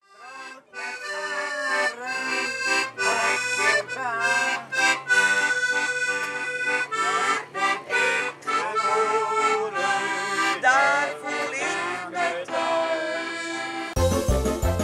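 Instrumental background music carrying a melody of held notes; near the end it changes abruptly to music with a strong steady beat.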